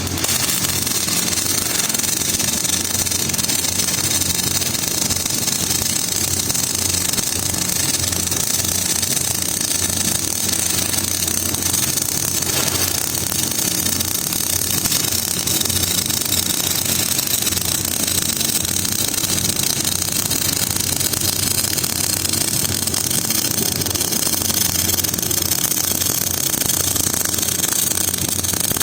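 MIG welding arc crackling steadily over a low, steady hum, unbroken for about half a minute.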